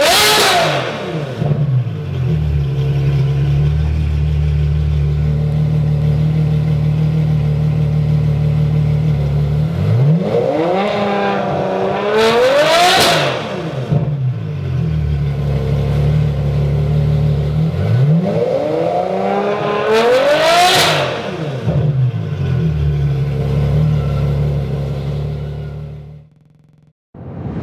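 Ferrari F12berlinetta's 6.3-litre V12 through an ARMYTRIX titanium exhaust, with the car standing still: a rev dies away at the start, then the engine idles steadily. Twice it is blipped, each rev climbing for about two seconds and dropping quickly back to idle, and the sound fades out near the end.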